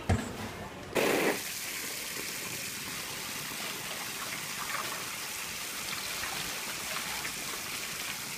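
Ice cubes poured from plastic bags into paddling pools of water, a steady rushing splash that starts about a second in.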